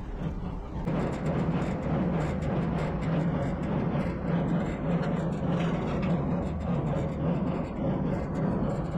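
Farm tractor engine running steadily, getting louder about a second in.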